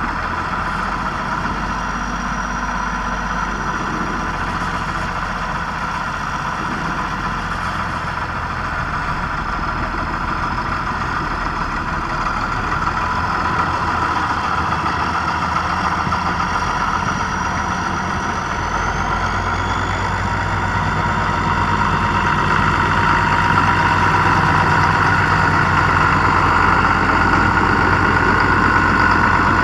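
A tractor's diesel engine running steadily. About two-thirds of the way in, its note shifts up a little and it gets slightly louder.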